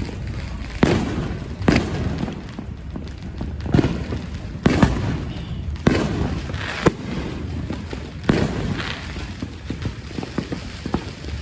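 Fireworks going off, about eight sharp bangs at uneven intervals, some followed by a short crackling hiss.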